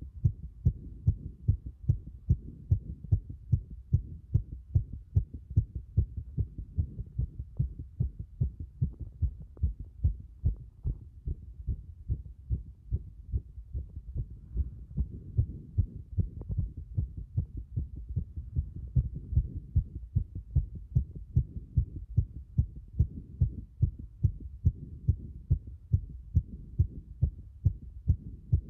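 Fast heartbeat heard over the cardiac apex: a rapid, regular run of low-pitched thumps.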